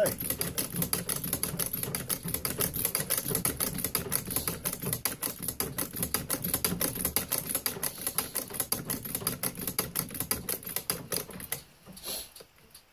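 Singer 29-4 shoe patcher stitching through a leather work boot: a fast, even clatter of needle strokes that stops about a second before the end.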